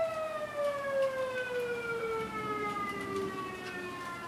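A siren wailing, a single pitch with several overtones gliding slowly and steadily downward. It sounds a little like a tornado warning siren.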